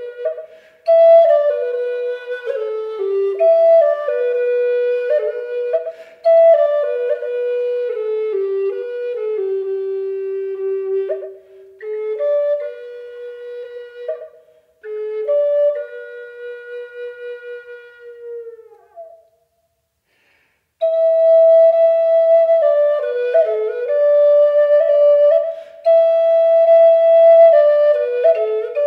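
Background music: a solo flute playing a melody in phrases of held and stepping notes, with a short pause about two-thirds of the way through.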